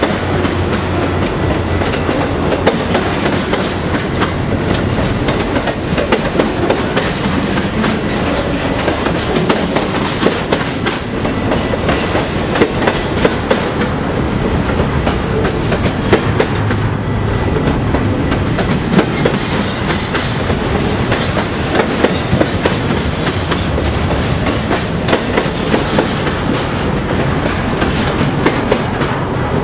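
Double-stack container well cars of a freight train rolling past close by: a loud, steady rumble of wheels on rail with a regular rhythm of sharp wheel clicks.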